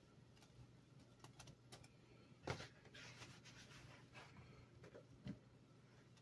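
Near silence: faint room tone with a low steady hum, scattered light clicks, and two soft thumps about two and a half and five seconds in.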